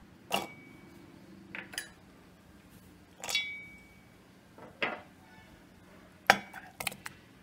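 A stainless-steel blender jar knocked and clinked as it is handled and filled with chopped onion and garlic: about eight sharp, irregularly spaced clinks, a couple of them leaving a short metallic ring.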